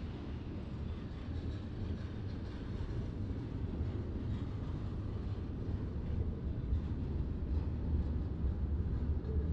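Freight train's diesel locomotives rumbling low and steady, slowly growing louder.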